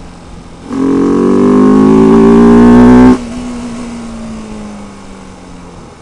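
Bajaj Pulsar 200RS single-cylinder engine breathing through a K&N conical air filter in place of the stock filter, under acceleration. About a second in the throttle opens and the engine note jumps up loudly and climbs in pitch for about two seconds. Then the throttle shuts suddenly and a quieter note slides slowly downward.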